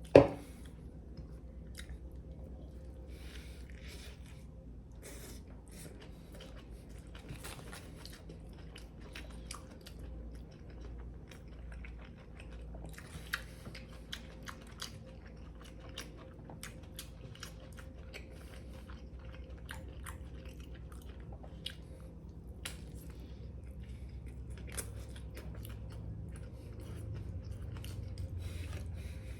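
Close-up chewing and biting of a toasted Subway sandwich, with crisp crunches of the bread and small wet mouth clicks scattered throughout. A sharp knock sounds right at the start.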